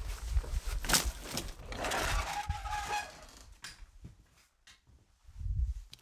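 Dry branches and sticks cracking and clattering as an armful is handled and dropped onto a woodpile, with a sharp snap about a second in. After that it goes quiet, with a low rumble of handling noise near the end.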